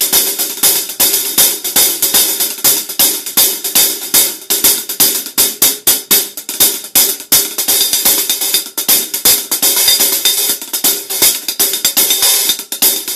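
Zildjian K Custom Hybrid 13¼-inch hi-hats played with a drumstick in a fast, steady run of strokes, bright and quick-decaying.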